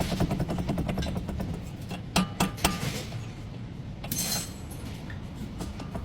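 Tools working on metal: a fast rattle for about two seconds, then three sharp, ringing metal knocks, and a brief hiss a little after four seconds in.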